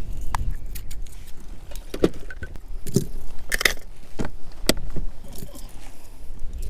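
Scattered clicks, knocks and light clatter of fishing gear being handled in a kayak, over a steady low rumble of wind on the microphone.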